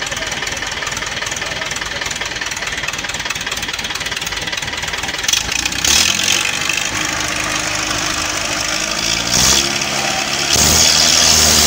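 Mahindra tractor's diesel engine idling, then revving up about six seconds in and again near the end as the tractor takes up load in a tug-of-war pull.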